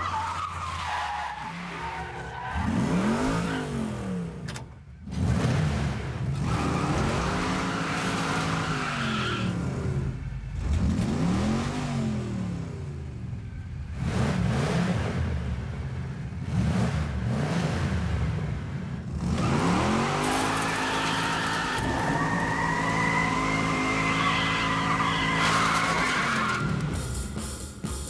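A car engine revving hard several times, its pitch climbing and falling with each rev. Near the end a long, wavering tyre squeal runs over the engine.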